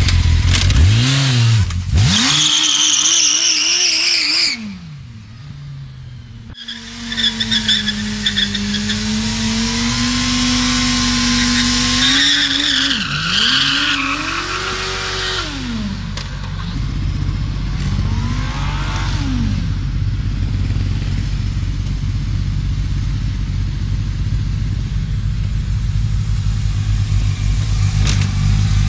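Sport motorcycle engine revving hard, its pitch rising and falling, then held high while the rear tyre spins in a smoky burnout. After more rising and falling revs it settles to a steady idle for the last ten seconds or so.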